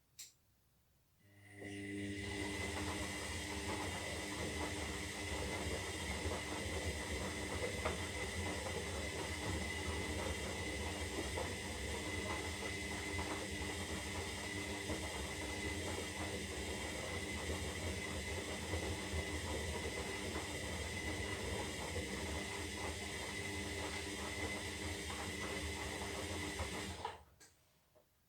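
Zanussi Lindo 300 washing machine running, its motor turning with a steady hum and a high whine over water sloshing, starting after a brief click about a second in and cutting off near the end.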